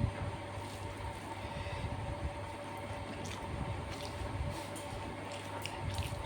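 Close-up eating sounds: chewing, with small wet mouth clicks from about halfway through, over a steady low hum.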